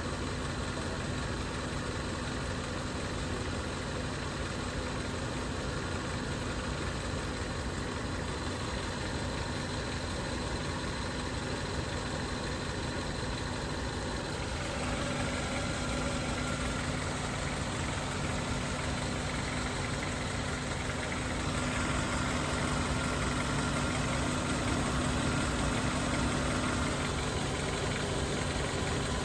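Car engine idling steadily, growing a little louder about fifteen seconds in and again a few seconds past twenty.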